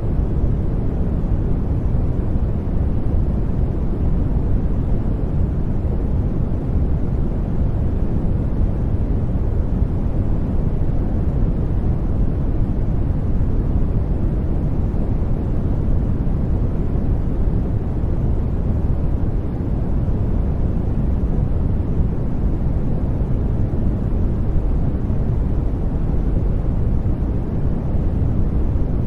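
Steady, deep rushing noise for sleeping, weighted to the low end like brown noise rather than a bright hiss, holding an even level without any change.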